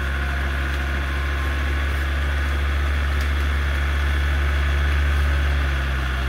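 Off-road 4x4's engine running steadily at low revs, swelling a little about four to five seconds in and easing off again near the end.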